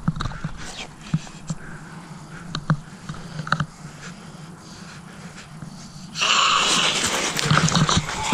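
Soft scattered clicks and thuds, then about six seconds in a sudden loud rushing, crackling noise of something running fast past through brush.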